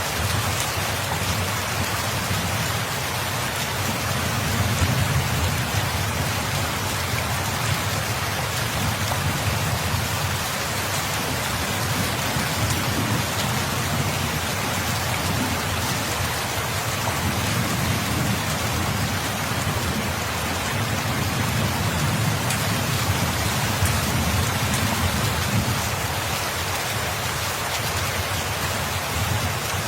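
Steady heavy rain hissing, with low rolling rumbles of distant thunder swelling and fading several times.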